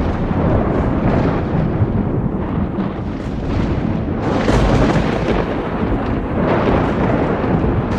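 Thunderstorm: deep, continuous rolling thunder, swelling to its loudest rumble about halfway through.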